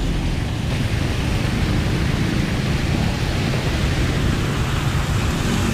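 Large tiered water fountain splashing steadily, an even rushing hiss.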